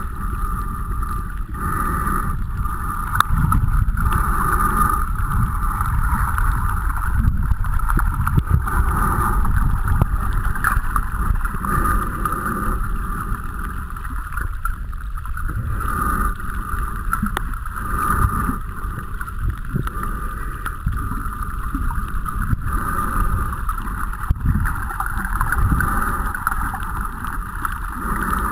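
Muffled underwater noise picked up by a camera in a waterproof housing: a steady low rumble of moving water with a hissing middle band and a faint steady high whine, with scattered faint clicks.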